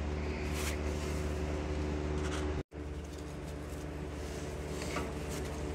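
Steady low machine hum, with a few faint scrapes and taps of hand tools working on metal. The sound cuts out completely for an instant about two and a half seconds in.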